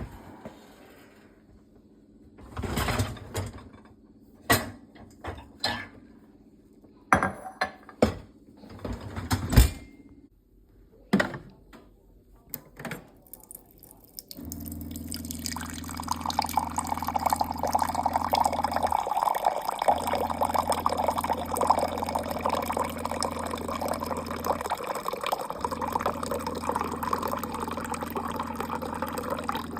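A string of knocks and clatters, then water running steadily from a tap, with a low hum underneath that cuts out briefly twice.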